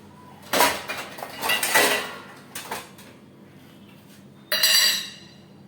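Metal kitchen pots and utensils clattering and clinking: a few knocks in the first two seconds, then one ringing metallic clang near the end.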